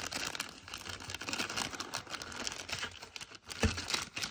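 Clear plastic bag crinkling as it is handled and turned over, with a couple of dull knocks near the end as it bumps the cardboard box.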